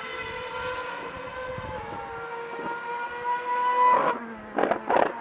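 2013 Formula One car's 2.4-litre V8 engine at high revs, its high whining note climbing slowly as the car accelerates and loudest about four seconds in. The pitch then drops sharply, with a few short, loud bursts near the end.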